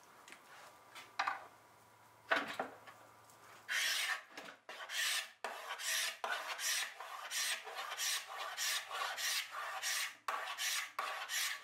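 A couple of knocks as a wooden panel is set down on a workbench, then a hand scraper rasping across the wood in quick repeated strokes, stripping off the old thin lacquer finish.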